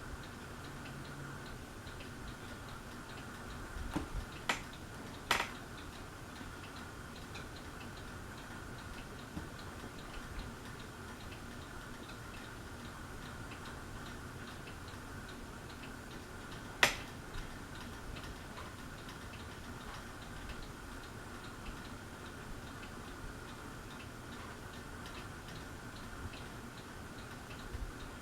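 Encon ceiling fan running on medium speed: a steady motor hum with faint, even ticking as it turns, and a few louder clicks.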